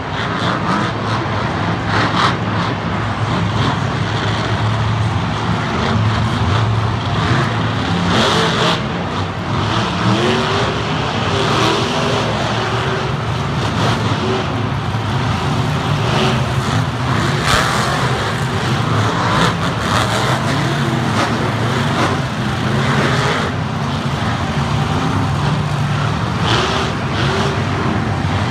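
Many supercharged monster truck V8 engines running and revving together as the trucks roll into line, with a few short, loud hissing blasts from CO2 jets firing at intervals.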